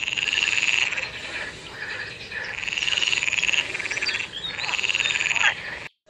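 Green water frog croaking: three long, pulsing calls about a second each, with gaps of a second or so between them.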